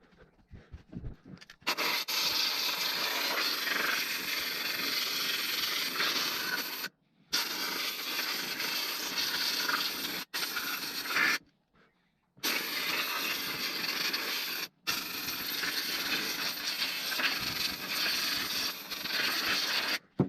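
Pressurised cleaning spray hissing in long blasts onto a dismantled motorcycle fuel-system part, stopping abruptly and restarting several times.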